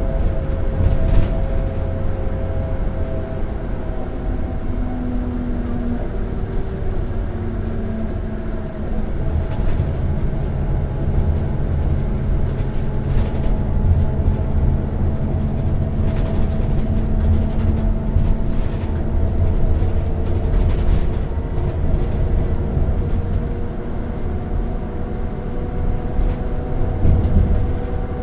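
Bus engine running while driving, heard from inside the cabin: a steady deep rumble with several engine and drivetrain tones slowly shifting in pitch, and scattered light rattles.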